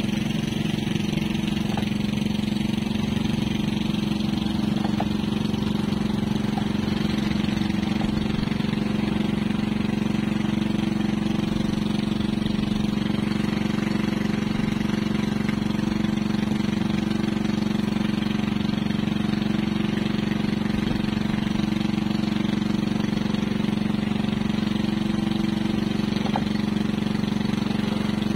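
Fishing boat's engine running steadily at constant speed, its pitch and level unchanging throughout.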